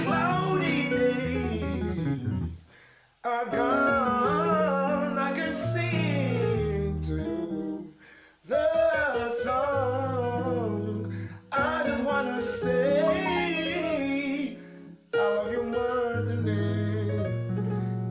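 A man singing a gospel song over electronic keyboard accompaniment with held bass notes. The music goes in phrases, with brief pauses between them.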